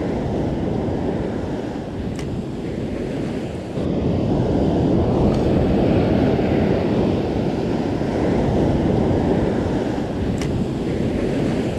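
Surf breaking and washing up a sandy beach, with wind buffeting the microphone. The sound steps up louder about four seconds in.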